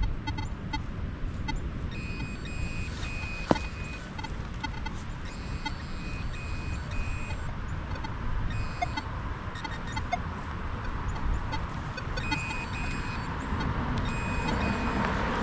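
Metal detector giving repeated short high-pitched beeps on and off as it sweeps over a target in a dug hole, with a single sharp click about three and a half seconds in.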